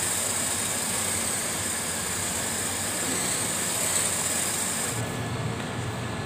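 Radio-controlled drift car running on a tiled floor: a steady hiss from its electric drivetrain and hard drift tyres sliding on the tiles. About five seconds in the sound changes abruptly, losing its high hiss and gaining a low hum.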